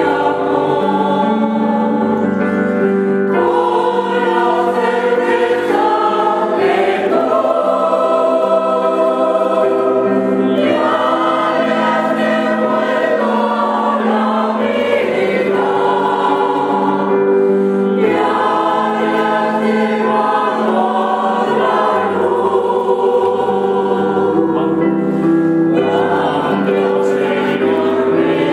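Mixed choir of women's and men's voices singing a slow sacred choral piece, in held chords that change every few seconds and phrases that break and start again every three to four seconds.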